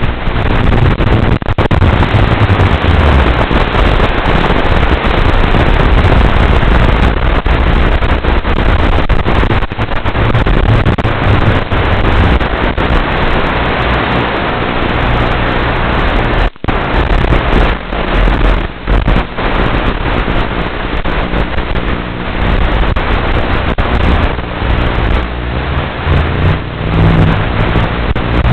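Loud, steady rushing noise with a low hum under it on the micro quadcopter's analog FPV video-link audio. It cuts out sharply for a moment about 16 seconds in and flickers a few times after that.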